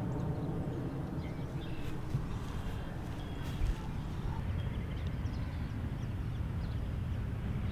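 Outdoor background noise: a steady low rumble with faint bird chirps, and one soft thump about three and a half seconds in.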